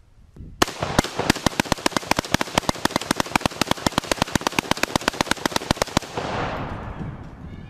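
A rapid, even string of sharp bangs, about ten a second for some five seconds, stopping suddenly and followed by a fading rumble.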